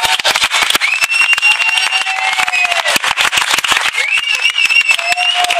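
Audience applauding close by at the end of a song, the claps sharp and uneven. Twice a long, high held tone, like a whistle, sounds over the clapping.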